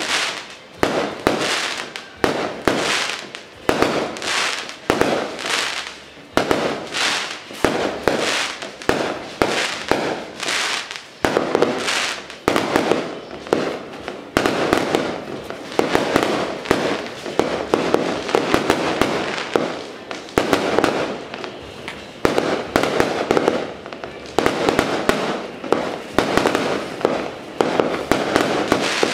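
Fireworks and firecrackers going off without a break: a string of bangs, about one or two a second, each dying away before the next.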